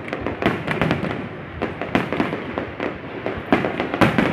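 Aerial fireworks going off in a dense barrage: overlapping bangs and crackles several times a second, with a few louder booms among them.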